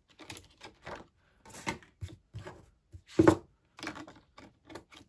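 Plastic pages and a tracker sheet in a ring-bound cash-envelope binder being handled: a run of short rustles, taps and clicks, the loudest about three seconds in.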